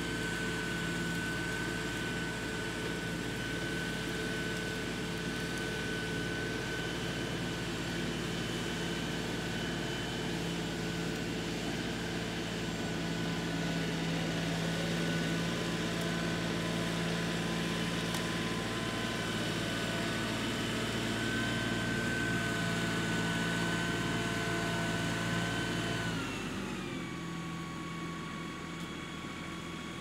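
LS XR3135 compact tractor's diesel engine running at working throttle with a steady high whine above it while the front loader works the ground. About four seconds before the end the throttle is pulled back: the pitch falls and the engine settles to a quieter idle.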